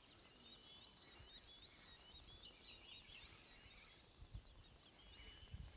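Faint songbird twittering, a quick run of short high chirps over the first three seconds, in near quiet outdoors. A few soft low knocks near the end.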